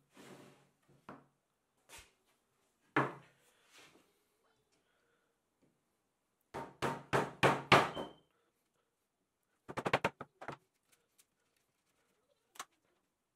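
Scattered hard knocks and thuds on wood: a single knock, then a fast run of about six heavy knocks, a cluster of sharper clicks shortly after, and one last knock near the end.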